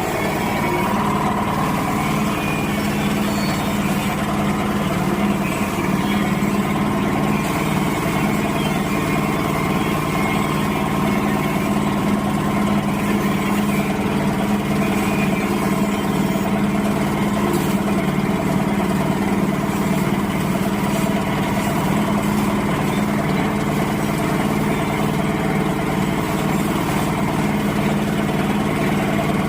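Areca nut splitting machine running steadily, giving an even, continuous mechanical drone.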